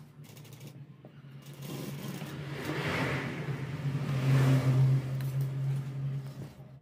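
Industrial lockstitch sewing machine running and stitching through fabric, a steady motor hum. It picks up and gets louder from about a second and a half in, is loudest past the middle, and cuts off suddenly at the end.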